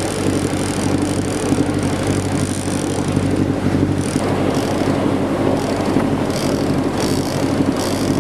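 Fishing boat's engine running steadily under way, with the rush of the churning wake behind the stern.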